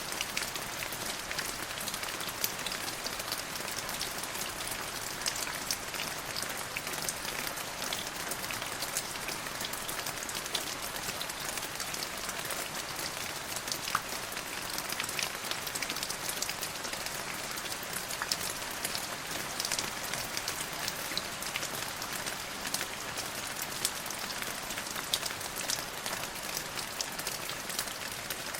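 Steady rainfall with many distinct drops pattering on a surface.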